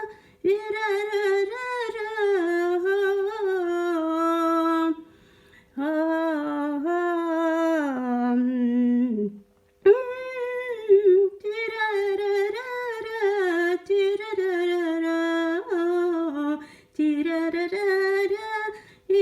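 A woman humming the melody of the song's instrumental interlude unaccompanied, in several flowing phrases broken by two short pauses.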